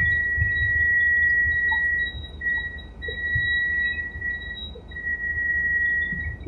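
Helicopter cabin noise: a steady high-pitched whine that drops out briefly several times, over an uneven low rumble.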